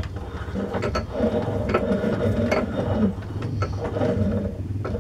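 Turnell & Odell lathe running with a steady mechanical hum and gear clatter, with repeated short clicks, while a reamer is worked through the bore of a change gear. The running sound stops briefly near the end and then starts again.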